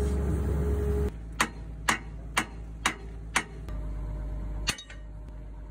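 Sharp metal-on-metal strikes, five evenly spaced at about two a second and one more near the end: a hammer striking steel parts of an excavator's crawler track. A low steady rumble in the first second stops abruptly.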